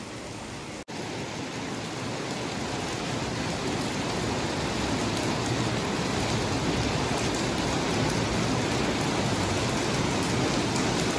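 Steady rain falling on a paved courtyard and garden plants: an even hiss that cuts out for an instant just under a second in, then builds slightly and holds steady.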